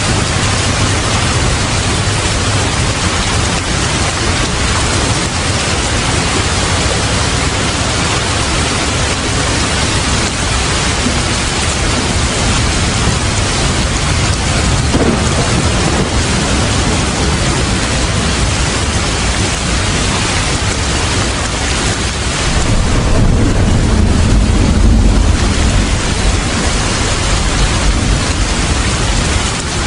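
Steady heavy rain, with a low rumble of thunder swelling about three-quarters of the way through.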